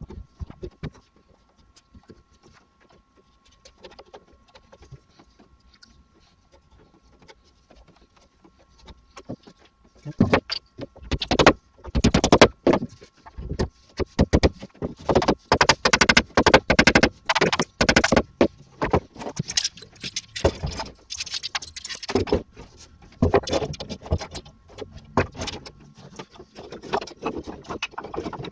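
Glued pine door frame being assembled and clamped up: a dense run of wooden knocks and metal clatter of sash clamps being set and wound tight, starting about ten seconds in after a quiet start.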